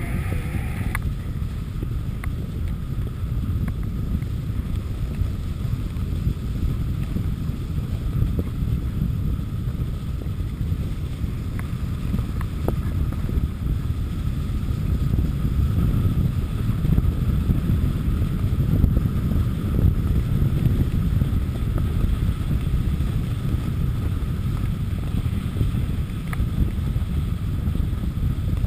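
Wind rumbling steadily on the microphone of a camera moving fast down a groomed ski run, mixed with the slide of riding over packed snow; it swells a little mid-way.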